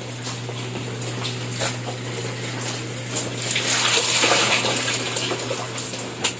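Water splashing and pouring indoors, swelling to a louder rush about three and a half seconds in, with a few brief clicks.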